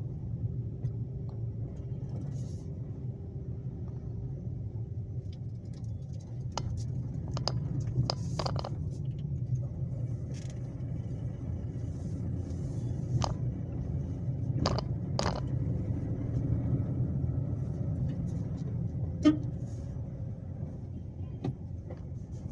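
Car cabin noise while driving slowly: a steady low engine and road rumble, with a few scattered sharp clicks and knocks, the loudest one late on.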